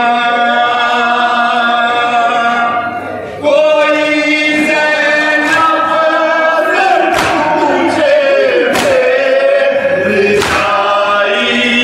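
Male voices chanting a noha, a Shia mourning lament, together in long held notes. A few sharp strikes cut through in the second half.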